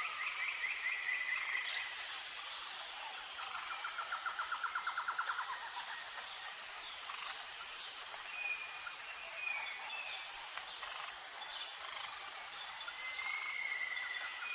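Tropical forest ambience: a steady high-pitched insect chorus with birds calling over it. A fast trill comes about four seconds in, and short whistled notes follow later.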